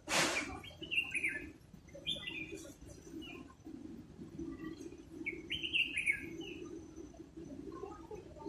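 Bird chirping in about three short runs of quick falling notes, with a steady low hum underneath. A short loud hiss comes right at the start.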